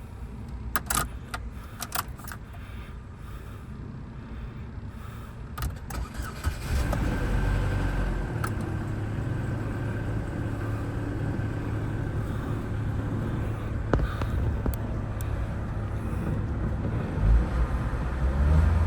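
Keys jingling and clicking, then about six and a half seconds in the 2007 Chevy HHR's four-cylinder engine starts and settles into a steady idle on the newly programmed key. Near the end it gets briefly louder.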